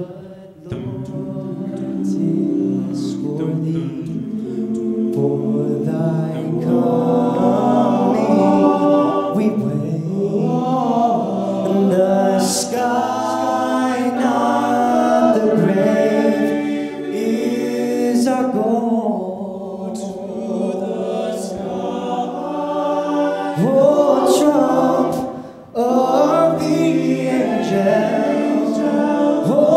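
Men's a cappella ensemble singing in multi-part harmony through handheld microphones, a lead voice over the group's backing parts, with a short break near the end.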